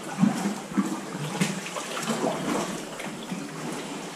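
Sea water sloshing and gurgling against rock inside a sea cave, with irregular splashes.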